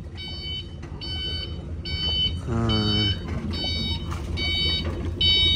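Electronic warning beeper sounding in a steady series of short, high-pitched beeps, about seven of them a little under a second apart.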